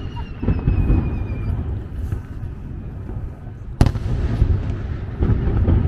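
Fireworks display: a steady low rumble of booms and crackling, with a falling whistle that fades in the first second and a half and one sharp bang nearly four seconds in.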